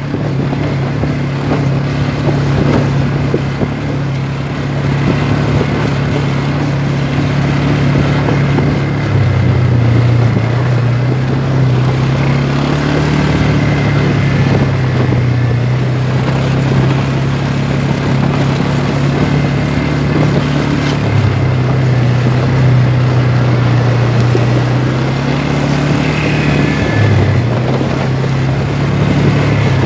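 Quad bike (ATV) engine running steadily on the move, its note dropping and rising a few times with the throttle, under a constant rush of wind on the microphone.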